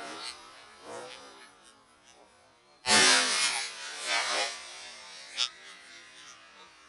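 A single shotgun shot about three seconds in: sudden and loud, ringing out for about half a second, followed by a few fainter knocks and a sharp click.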